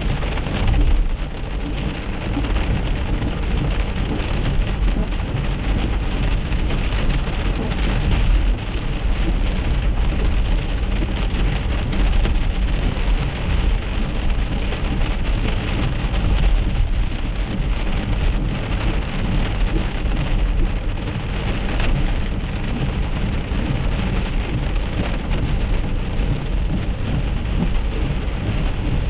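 Rain and small hail pelting the windshield and roof of a moving car, heard inside the cabin as a dense, steady patter over a constant low rumble of the tyres on the wet road.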